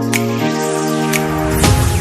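Background music: an upbeat electronic track with held synth chords and a beat hitting about once a second. The chord changes about half a second in, and a rising swell builds near the end.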